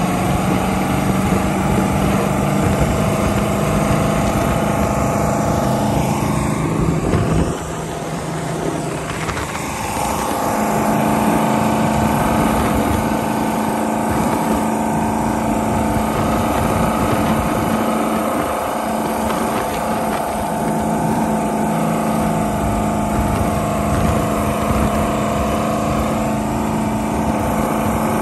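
V8 engine of a 1940 Boyce & Sons race boat running under way, with a steady rush of wind and water. About seven seconds in, the engine note drops and quietens, then comes back up about ten seconds in and holds steady at a slightly higher pitch.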